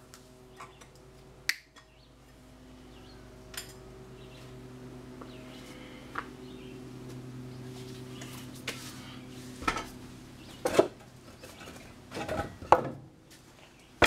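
Knocks and metallic clanks of a spoked motorcycle wheel with its tire being lifted and set down on wooden boards, bunched in the second half. A steady low hum runs under the first several seconds.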